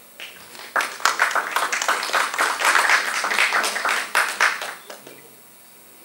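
Small audience clapping in a small room, starting about a second in and dying away about five seconds in.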